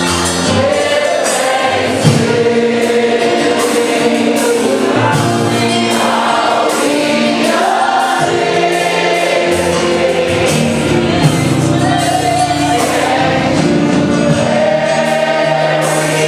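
Gospel choir singing with band accompaniment, a steady beat throughout.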